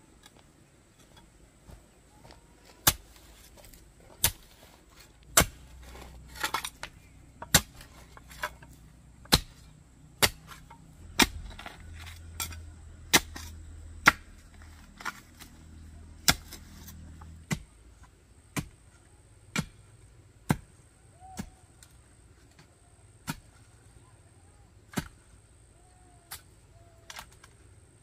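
Sharp knocks of a digging tool striking hard, stony ground, about one a second, sometimes two in quick succession, thinning out near the end.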